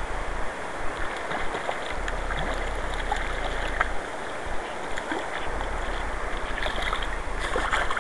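River current rushing steadily, with scattered small splashes from a hooked fish thrashing at the surface, thickest near the end.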